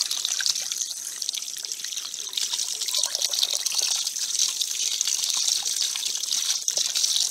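Tap water running in a steady stream into a metal bowl of raw chicken pieces, splashing as hands rub and turn the meat to wash it.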